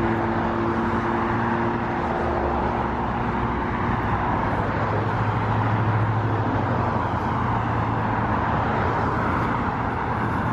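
Road traffic passing on a busy boulevard: a steady rush of tyre and engine noise. One vehicle's engine hum fades away over the first few seconds, and another low engine rumble swells and fades around the middle.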